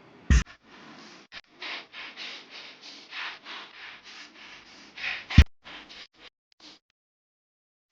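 Rhythmic rasping strokes, about three a second, framed by two sharp knocks, the second one the loudest.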